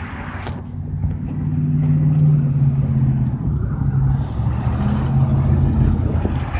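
A motor vehicle's engine running close by, a steady hum that grows louder about a second in and then holds.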